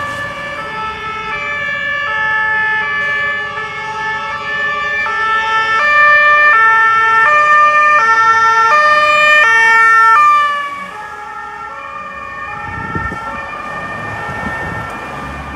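German two-tone emergency siren (Martinshorn) on an ambulance passing close by, stepping between two pitches about every half-second, at first overlapping with another vehicle's siren. About ten seconds in it drops in loudness and slightly in pitch as the ambulance passes, then carries on fainter over the rumble of traffic.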